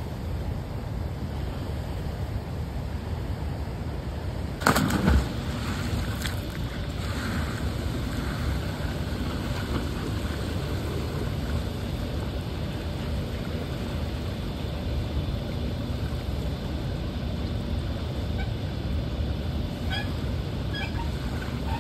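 Wind rumbling steadily on the microphone, with one short loud bump about five seconds in and a few faint high chirps near the end.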